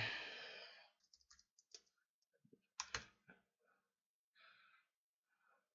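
Faint computer keyboard typing and mouse clicks, scattered and soft, with one sharper click about three seconds in.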